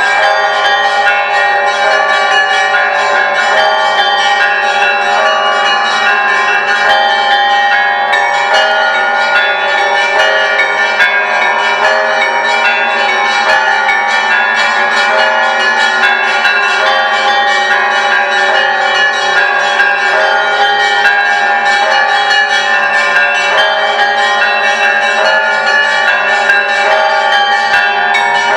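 Church bells of the Great Lavra Bell Tower ringing in the Orthodox manner. Many bells of different pitches are struck in quick succession, and their tones overlap into a loud, unbroken ring.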